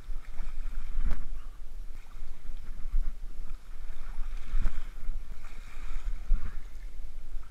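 Small waves washing and splashing over weedy shoreline rocks, with wind buffeting the microphone in low, uneven surges.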